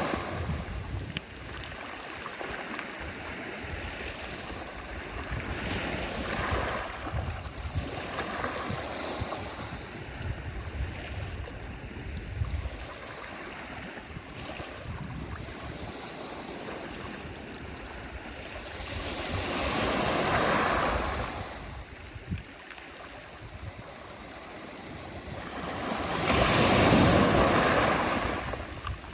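Sea waves washing onto a shore in a steady hiss, with a wave surging up and breaking about twenty seconds in and a louder one near the end.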